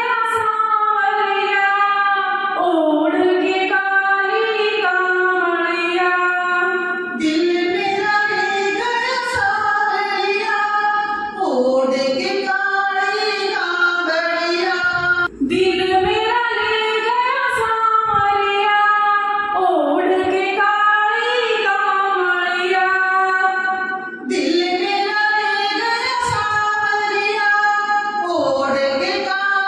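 Women singing a Hindi devotional bhajan to Krishna through a microphone, one voice taking over from the other, the melody unbroken with long held and gliding notes.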